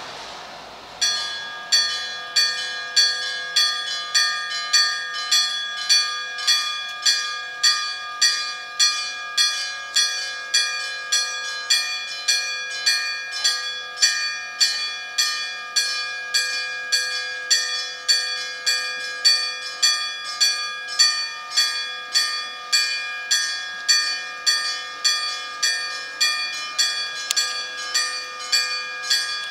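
Japanese railroad crossing warning bell starting up about a second in and ringing steadily, about one and a half strikes a second, warning that a train is approaching.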